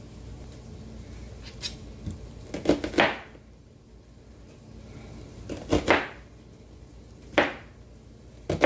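Kitchen knife cutting an onion and knocking on a cutting board, in a few irregular clusters of knocks.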